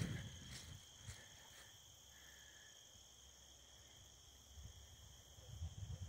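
Crickets trilling faintly and steadily, an unbroken high-pitched tone.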